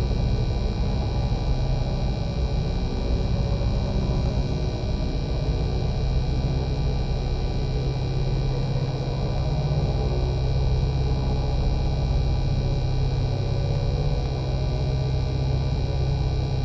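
Sci-fi UFO sound effect: a steady, unchanging hovering drone, a deep hum with several steady high tones layered above it.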